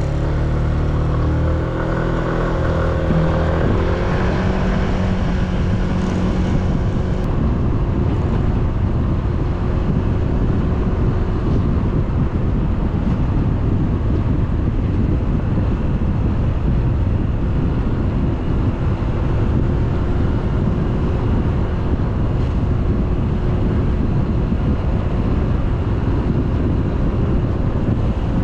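A vehicle engine drones as it sets off, its pitch stepping up about three seconds in. Then a steady, heavy wind rumble on the microphone from the moving vehicle covers the rest, with a faint engine tone underneath.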